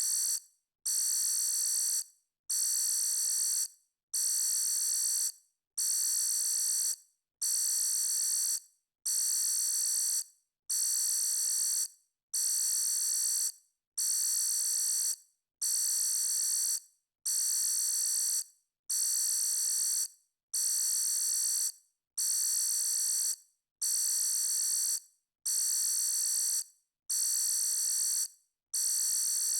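Electronic alarm sounding in a steady loop of long, high-pitched tones, each a little over a second long, separated by short gaps and repeating about every second and a half.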